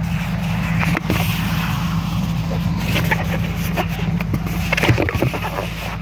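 Steady low rumble of wind on the microphone, with small squeaks and rubbing from a latex balloon being knotted and twisted by hand, a few of them about a second in, around three seconds and near the end.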